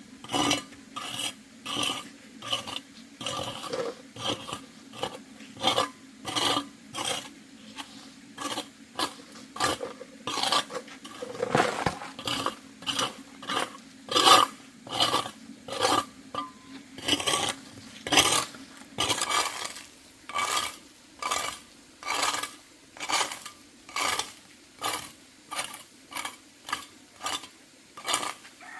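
Repeated strokes of a hand tool, about two a second, each one a short scrape or rasp, kept up steadily throughout.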